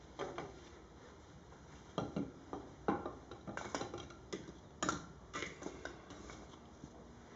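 Kindling and firewood in an open hearth fireplace giving irregular sharp clicks and knocks while the fire is being started, about a dozen, most of them between about two and six seconds in.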